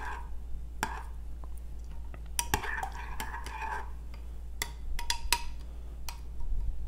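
Metal spoon stirring a thick tomato and ketchup sauce in a glass measuring cup, with scattered clinks of the spoon against the glass as it presses lumps of powder into the liquid.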